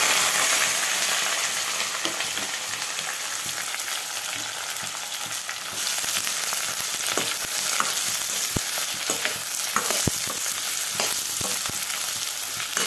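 Chopped onions and green chillies sizzling loudly as they hit hot oil in a stainless steel pan, then frying steadily while a steel spoon stirs them, with a few clicks and scrapes of the spoon against the pan.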